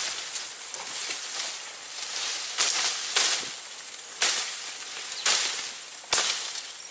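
Leaves and stems rustling and brushing as someone pushes through dense undergrowth, with five sharp swishes over the second half.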